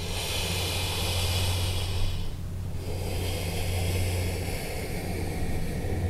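A person breathing slowly and audibly while holding a deep forward-fold stretch: two long breaths with a short pause between them, over a steady low hum.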